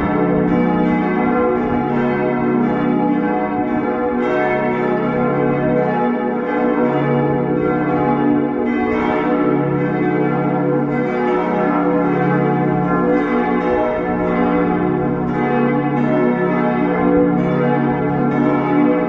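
Full peal of church bells: all the bells ringing together, their strikes overlapping in a continuous, dense ringing.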